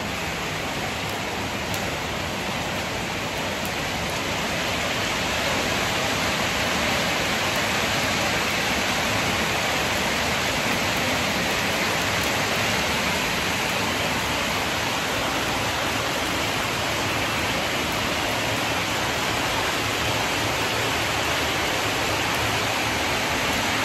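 Rain falling steadily onto a tiled patio, an even hiss that swells slightly about five seconds in.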